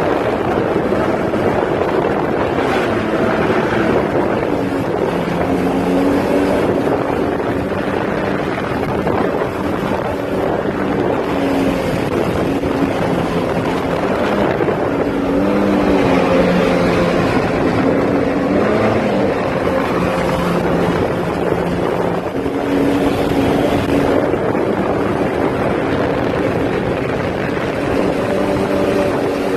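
A motor running steadily under a strong rush of wind noise on the microphone. Its hum changes pitch a few times.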